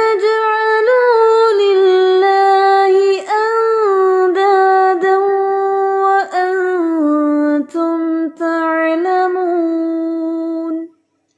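A female voice reciting the Quran in a slow, melodic tajweed chant, holding long notes that step up and down in pitch, with brief breaths between phrases. The recitation stops near the end.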